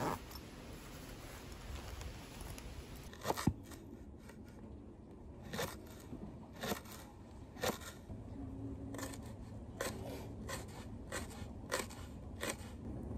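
Kitchen knife slicing leek and a small onion on a plastic cutting board, starting about three seconds in: sharp, irregular taps of the blade striking the board, roughly one a second.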